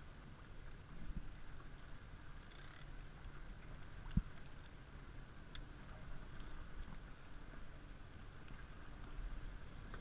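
Faint low rumble of a small boat on open water, with a single short knock about four seconds in.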